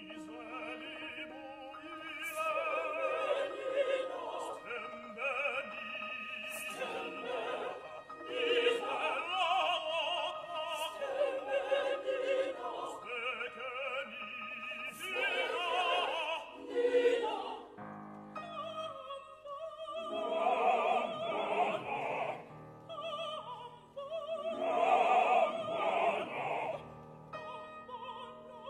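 Mixed choir of women's and men's voices singing a choral song in parts, in sung phrases separated by short breaks.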